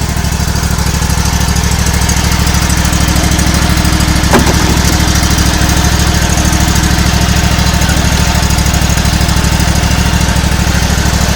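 Toro riding lawn mower engine running steadily after a remote start, growing louder over the first couple of seconds. A single brief click about four seconds in.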